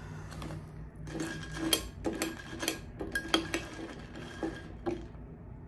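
Metal spoon stirring cereal and milk in a glass bowl, clinking against the glass about a dozen times at an uneven pace from about a second in, each clink ringing briefly.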